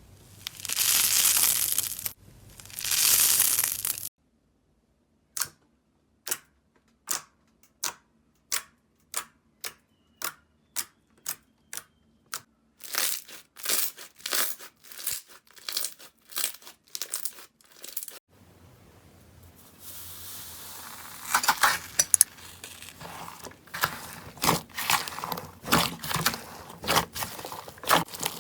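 Slime being worked by hand in a run of separate clips. First come three long crinkling, tearing sweeps. Then sharp pops that speed up and crowd together, and near the end dense crackling over a low hiss.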